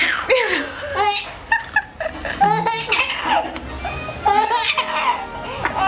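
Baby laughing in a string of short giggles and belly laughs.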